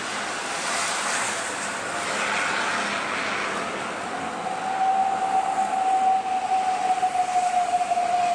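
Road traffic going past, with a steady high whine that sets in about halfway through and drifts slightly down in pitch.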